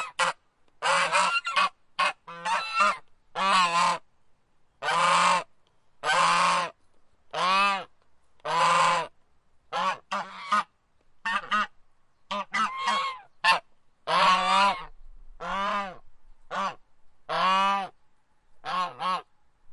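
A goose honking over and over: separate honks about once a second, some short and in quick pairs, others longer, with brief silences between them.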